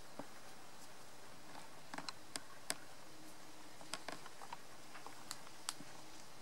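Scattered short, sharp clicks and ticks at irregular intervals over a steady low hiss, with a faint steady hum in the second half.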